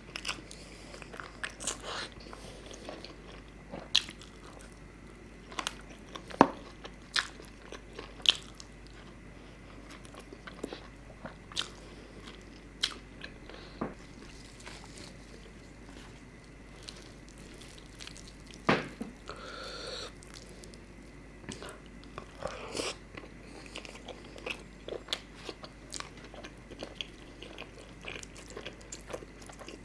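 Close-miked chewing and wet mouth sounds of a man eating chicken curry and layered paratha with his hands, with irregular sharp clicks scattered throughout.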